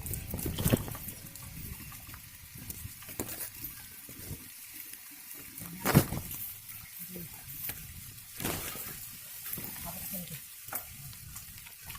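Bicycles rolling over a rough dirt and gravel track: a steady crackle of tyres on loose ground with scattered rattles and knocks, the sharpest about six seconds in.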